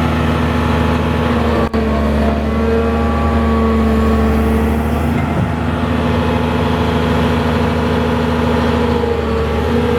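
Caterpillar 330D L excavator's diesel engine running steadily, with a momentary dip in the sound just under two seconds in.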